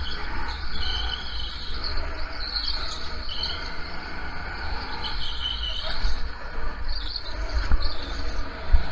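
Go-kart driving on a track, its engine running with a low rumble under it, and short high squeals coming and going every couple of seconds.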